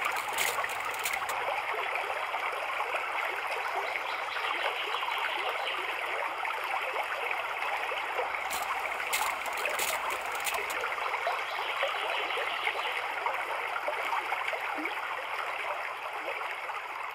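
Steady running-water sound like a flowing stream, with several short hissing spritzes from a spray bottle misting the tank: two in the first second or so and four in quick succession about halfway through. The sound fades away near the end.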